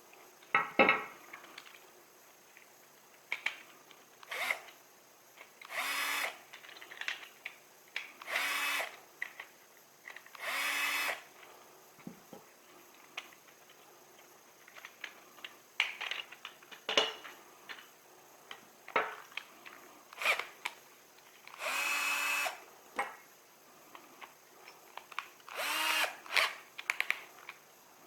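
Power drill run in short bursts, about a dozen times, each lasting around a second, with sharp clicks in between.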